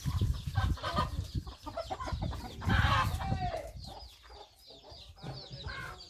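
Free-range country chickens clucking, with a louder call about three seconds in. Low thumps sound under the first half.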